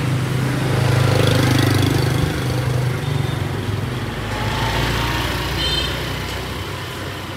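Small motorbike engine running close by with a steady low hum, loudest in the first couple of seconds and then fading.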